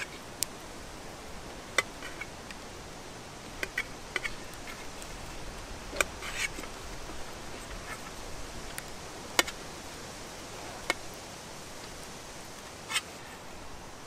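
Knife slicing mushrooms over a metal fry pan, the blade striking the pan now and then with sharp, irregular clicks, some followed by a short rattle, over a steady background hiss.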